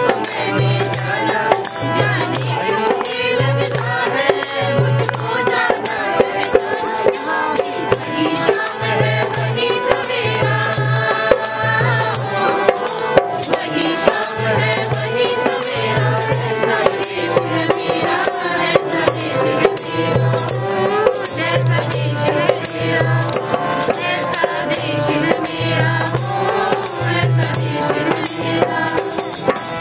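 Live group singing of a song to harmonium and dholak: the voices and harmonium carry the melody over a steady rhythm of the dholak's deep strokes, with a rattling percussion accompaniment.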